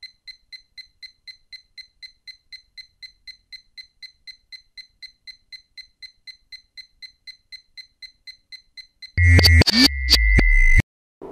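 Fast, even electronic beeping, about four high beeps a second, then a loud burst of synthesized sound effect with a steady high tone, sharp clicks and a low rumble that cuts off suddenly.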